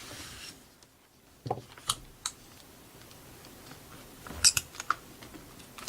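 Adhesive tape and paper being handled and smoothed onto a booklet page: scattered small sharp clicks and crinkles, a few about two seconds in and a quicker cluster a little over four seconds in.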